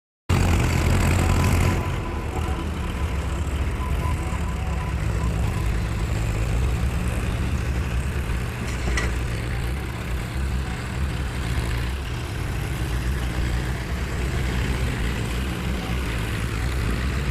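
Tractor diesel engine running steadily at low revs, a little louder for the first second and a half.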